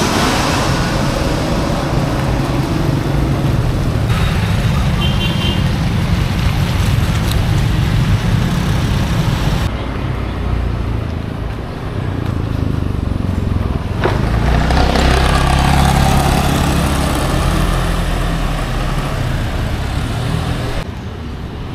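Road traffic: vehicle engines running and passing, with a steady low rumble and road noise. The sound changes abruptly three times, as between spliced clips, and a short run of high beeps comes about five seconds in.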